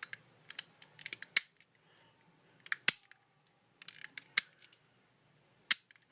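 Scattered sharp plastic clicks and taps from a small plastic toy switch being handled and pressed down, about a dozen irregular clicks with the loudest a little under 3 seconds in.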